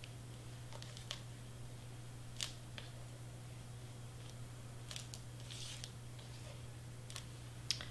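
Faint, scattered clicks and rustles of hands handling and pressing paper cardstock pieces, over a steady low hum.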